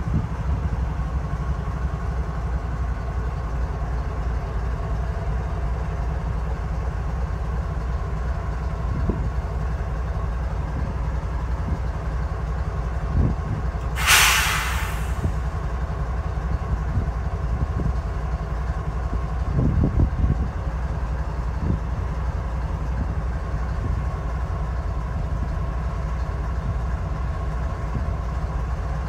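Union Pacific diesel-electric locomotives idling with a steady low rumble. About halfway through, a sharp hiss of released air lasts about a second, and a few faint clunks come before and after it.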